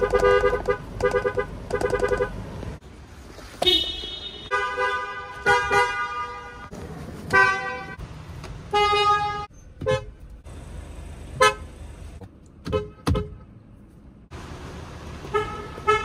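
Car horns from several different cars honked one after another, in short blasts and quick taps, each horn with its own pitch. The first, a Ford's, sounds three short honks.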